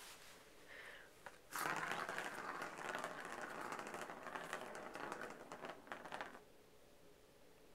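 A cat clawing a corrugated cardboard scratch pad: a rapid, rasping scratching that starts about a second and a half in and runs for about five seconds before stopping.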